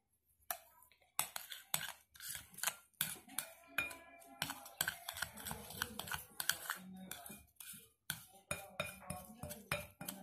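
Metal spoon clinking and scraping against a cut-glass bowl in quick, irregular taps while milk powder is stirred into beaten egg to form a stiff rasmalai dough.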